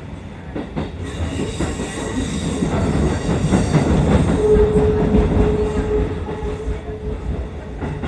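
Shin-Keisei electric commuter train running, heard from inside the passenger car: a steady rumble with rail-joint clicks, swelling and then easing. Midway a steady wheel squeal sounds for about three seconds.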